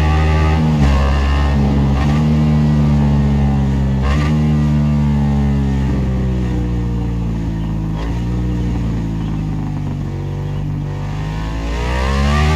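Ducati Desmosedici RR's V4 engine running under riding, its pitch stepping and breaking several times in the first few seconds, then falling slowly as it eases off, and rising again near the end.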